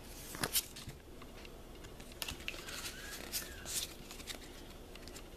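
Faint, scattered crinkles and rustles of a torn-open foil Pokémon booster-pack wrapper being handled, a few short ones spread through.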